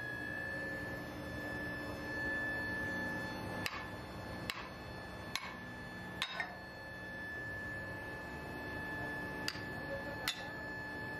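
A steady high-pitched machine whine, with about seven sharp metallic clinks scattered through it, some ringing briefly, typical of metal parts being handled or knocked during machining.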